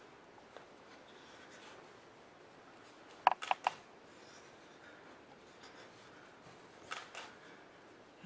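Performer's body and hands moving on a wooden stage floor: a quick run of three sharp knocks about three seconds in and two softer ones near seven seconds, over faint room tone.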